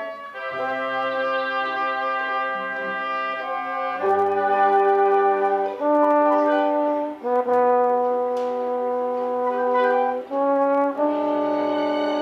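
Orchestra playing a slow passage of long held chords, changing every second or two, with the brass section prominent.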